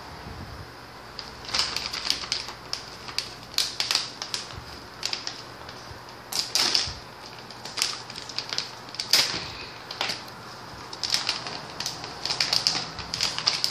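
Plastic snack pouch crinkling as it is handled and pulled open, with irregular clusters of sharp crackles.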